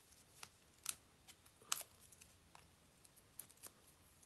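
Light handling sounds of a die-cut cardstock panel with foam adhesive dots: a few scattered sharp paper clicks and rustles, the clearest about one and two seconds in.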